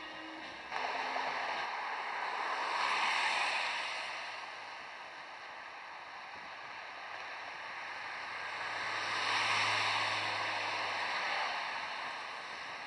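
Road traffic passing close by: two vehicles go by, each swelling in and fading away, the first about three seconds in and the second around nine to ten seconds, the second with a low engine hum under its tyre noise.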